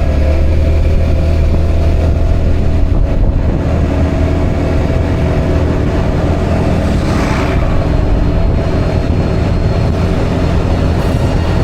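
Honda Forza 350 scooter's single-cylinder engine running with a steady low drone and road noise, with a brief rushing swell about seven seconds in.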